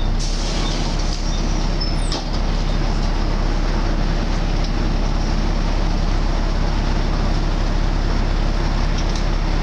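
Volvo B7TL double-decker bus running steadily under way, heard from on board: the engine's steady drone with road noise and a high whine over it, the loud 'hoover' sound this bus is known for. A brief high squeal about two seconds in.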